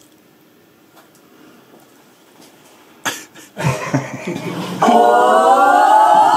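A voice holds one long sung note that rises slowly in pitch, starting about five seconds in. Before it there is quiet room tone and a sudden sound at about three seconds.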